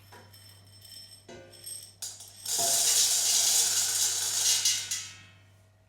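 Dry popcorn kernels poured from a one-third measuring cup into a pot: a dense rattling patter that starts about two and a half seconds in and tapers off over the last second.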